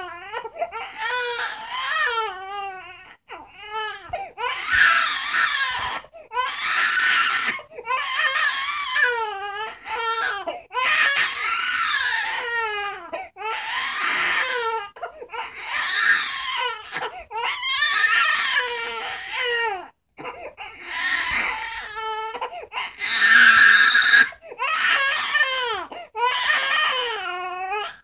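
Infant crying in a long run of wailing cries, each lasting a second or two, with short breaths between them.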